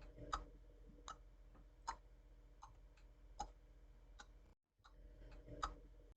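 Near silence: faint sharp ticks about every three-quarters of a second over a low steady hum.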